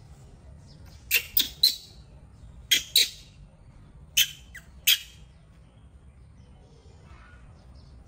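Baby macaque giving about seven short, shrill squeaks in three quick clusters while being dressed.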